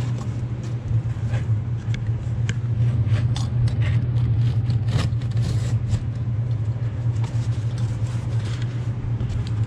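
Utility knife slicing through packing tape on a cardboard shipping box, with short scrapes and rustles as the cardboard flaps are pulled open, over a steady low hum.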